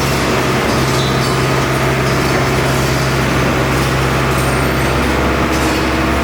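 Hyundai R85A Smart crawler excavator's diesel engine running steadily, a constant low hum.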